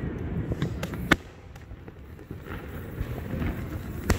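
Fireworks going off: a few sharp bangs, the loudest about a second in and another near the end, over a low rumble.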